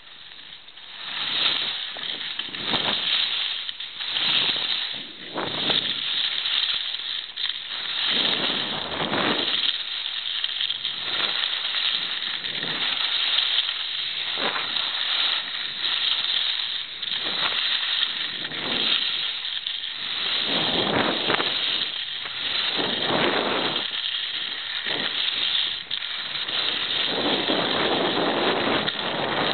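Wind buffeting the camera's microphone together with skis hissing and scraping over packed snow on a downhill run, rising and falling in uneven surges.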